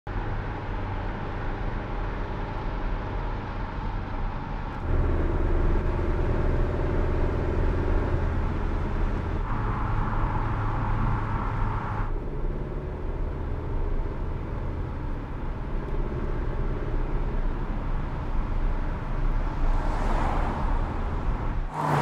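Mercedes-Benz C-Class All-Terrain driving on the road: steady engine and tyre noise, its tone shifting abruptly several times. A brief swelling whoosh comes near the end.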